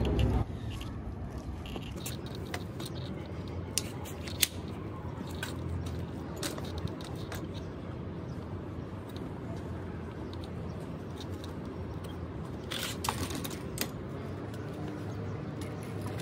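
Brompton C Line folding bike being unfolded: irregular sharp clicks and clacks from its hinges, clamps and handlebar stem as the frame is opened out, with a quick run of clicks late on, over a steady low background hum.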